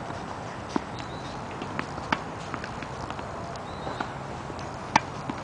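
Tennis balls being struck with rackets and bouncing on a hard court during a feeding drill: scattered sharp pocks, the loudest about five seconds in.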